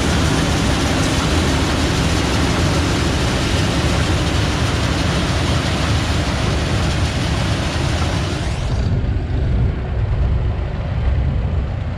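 Heavy farm machinery running steadily: a loud rushing noise over a low engine rumble. About nine seconds in, the rushing stops abruptly and only the low rumble carries on.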